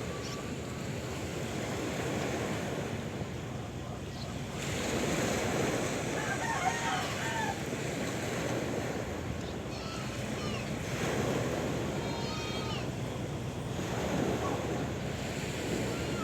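Sea waves washing in on a shore with wind, the surf swelling every few seconds. A few short, high calls come through the wash about a third of the way in and again about three quarters in.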